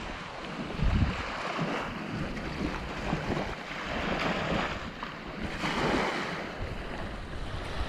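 Wind buffeting the microphone over sea water splashing around a kayak under way, the water noise swelling every second or two.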